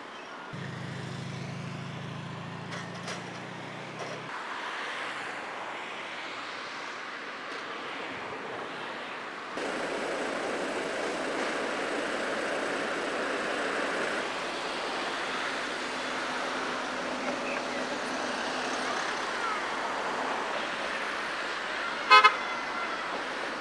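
Vehicle noise outdoors: a low, steady engine hum for the first few seconds, then even outdoor noise. Near the end comes a single short, loud horn toot.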